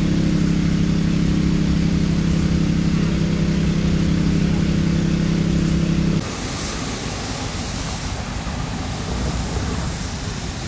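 An engine runs with a steady, even hum and cuts off abruptly about six seconds in. A quieter, steady noise like outdoor wind or water rush follows.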